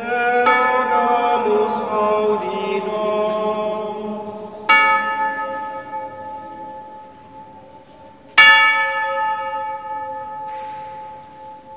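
Chanted singing that fades out, then a bell struck twice, about four seconds apart, each stroke ringing on and dying away slowly.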